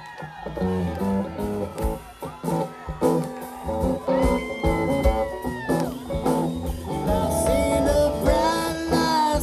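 Live rock band playing: electric guitar over bass and drums, with a long held high guitar note in the middle, and a man's singing voice coming in near the end.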